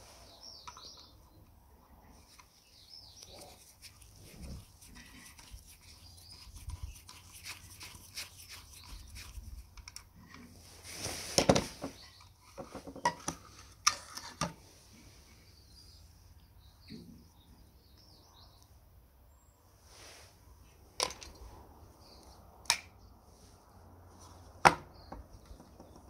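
Gloved hands handling and taking apart an old tin coffee grinder with its wooden drawer: scattered small clicks, rustles and knocks of metal and wood. About halfway through there is a louder rough noise lasting about a second, and three sharp clicks come in the last third.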